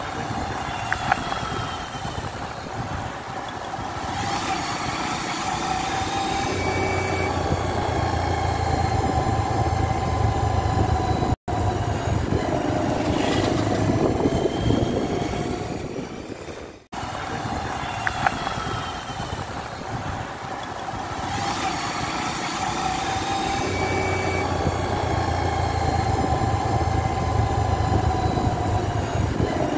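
Engine and road noise of a vehicle being driven, the engine's note drifting up and down. The sound cuts out abruptly twice, about a third of the way in and again just past halfway.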